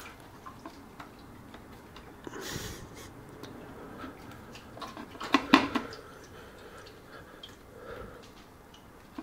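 Hands and tools working a radiator hose and its clip free on a motorcycle: small scattered clicks, a short hiss about two and a half seconds in, and a louder cluster of knocks about halfway through.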